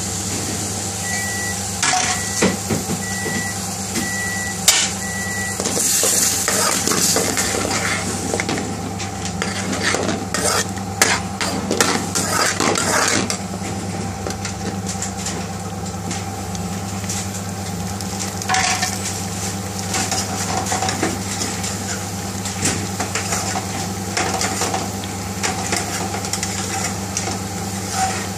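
A metal spoon stirring and scraping against a metal pan as curry base gravy cooks, sizzling and coming to a bubble, with many short clicks of spoon on pan. A steady low hum runs underneath, and five short high beeps sound about a second apart near the start.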